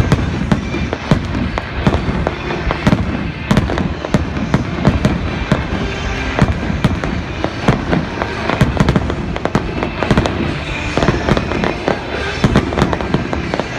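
Fireworks going off in a rapid barrage, many sharp bangs a second with crackling, over music playing underneath.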